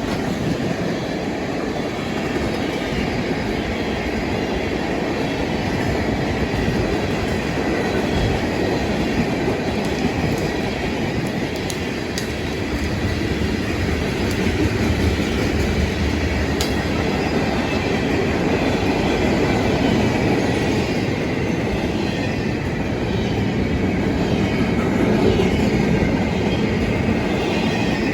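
Freight train cars rolling past: a steady rumble of steel wheels on the rails, with a few light clanks.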